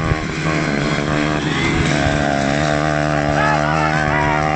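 Small moped engines running, one passing close by; the engine note dips about two seconds in and then holds steady.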